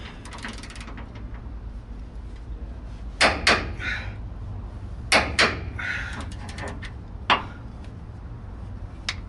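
Hand tools tightening the bolts of an aftermarket panhard bar: a ratchet wrench clicking in short runs, and sharp metallic knocks of the tool against the bar and suspension, two pairs a couple of seconds apart and a single one later.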